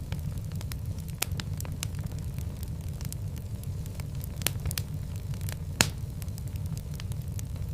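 Wood fire burning in a fireplace: a steady low rumble with irregular sharp crackles and pops, one louder pop a little before the end.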